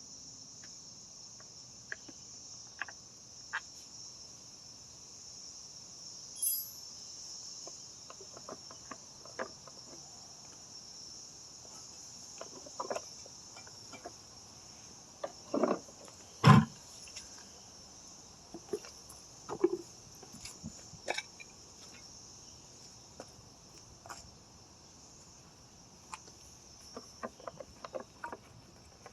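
Steady chirring of crickets, with scattered clicks and knocks from small parts and tools being handled while a mower is taken apart. The loudest is a single sharp knock about halfway through.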